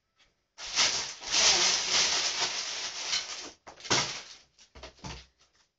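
Close, loud rustling for about three seconds, then a sharper rustle and a few short ones.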